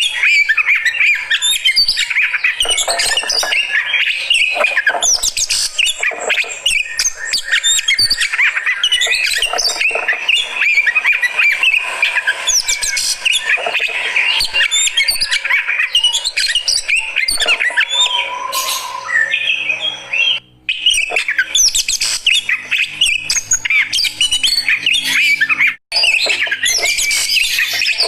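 Oriental magpie-robin (kacer) calling and singing without pause in a fast, varied stream of chirps mixed with harsh squawking notes. The sound breaks off very briefly twice, at about 20 seconds and about 26 seconds in.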